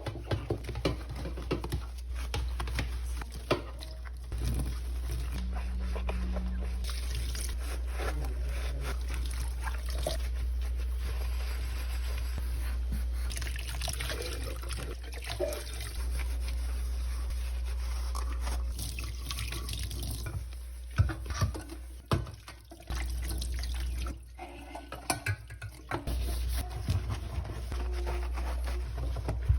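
Tap water running into a kitchen sink while dishes are washed by hand, with short clinks and knocks of dishes scattered throughout and the flow dropping away for short spells past the middle.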